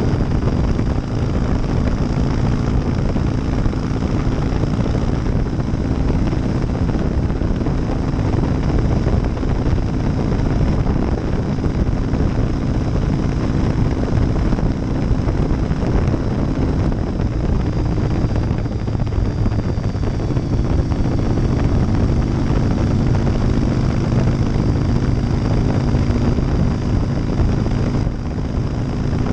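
2001 Harley-Davidson Softail Deuce's 88-cubic-inch V-twin running through Vance & Hines baffles at steady highway cruise, with wind rush. The engine note eases and picks up slightly a few times.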